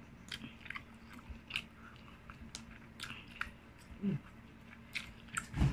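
Close-miked chewing while eating fufu, egusi soup and goat meat: a string of short wet mouth clicks, with a low thump about four seconds in and a louder one near the end.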